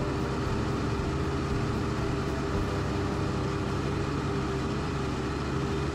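A TYM loader tractor's diesel engine running at a steady speed as the tractor drives along: an even drone with a constant pitched hum.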